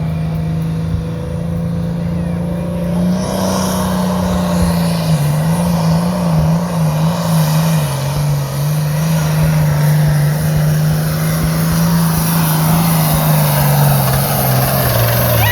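International Harvester 1066 hot farm pulling tractor's diesel engine running hard at full throttle under load. Its pitch steps up slightly about three seconds in, wavers in the middle, sags gradually as the load builds, and drops off sharply at the end.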